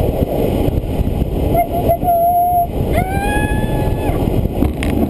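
Glider rolling out on its landing wheel over a grass airfield: a steady, rough rumble. Twice a held, steady squeal sounds over it, the second lasting about a second.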